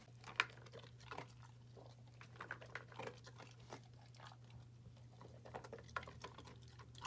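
A Labrador retriever–German shorthaired pointer mix dog eating dry kibble from a plastic bowl: a run of faint, irregular crunches and clicks, over a steady low hum.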